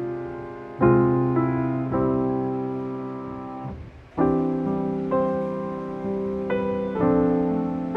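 Slow, gentle solo piano music: chords struck about once a second, each ringing out and fading, with a brief pause about four seconds in.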